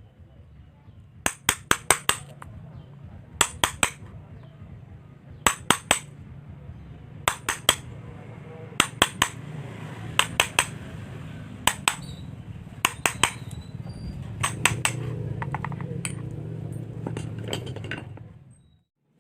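Quick, sharp clinking taps, as from a small tool striking hard material, in clusters of two to five about every one and a half seconds, over a low steady hum.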